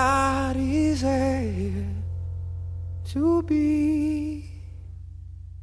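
Background music: a sung melody in two held phrases over a steady accompaniment, dropping to a quieter passage near the end.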